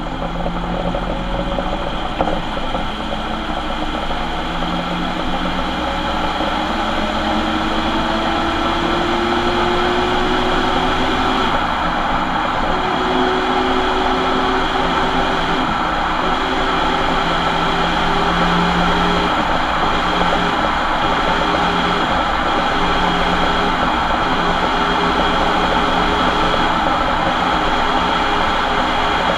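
Ford Transit van running with a whine from its bad differential, several thin tones that rise slowly in pitch, break off briefly about twelve seconds in and fade out after about twenty seconds, over steady engine and road noise.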